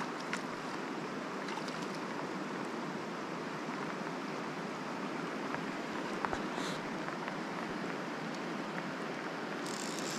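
River water running steadily over a gravel bed, a constant rushing. A few faint clicks sound over it, and a scratchy rustle comes near the end.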